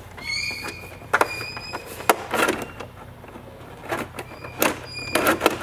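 Metal spoiler blade and its linkage in a large-scale RC glider wing being worked up and down by hand: a series of irregular clicks and clacks, with a few short high squeaks.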